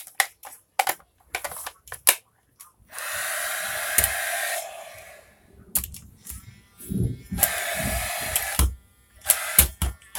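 Battery-powered gadget that normally takes CO2 cartridges, run without a cartridge: a few sharp handling clicks, then a steady whirring hiss that comes on three times, each run lasting one to two seconds.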